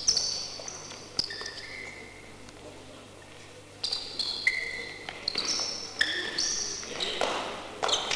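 Sports shoes squeaking on a gym floor in short high chirps as the fighters move about, with a few sharp clacks of the wooden fighting canes. The squeaks come thickest in the second half.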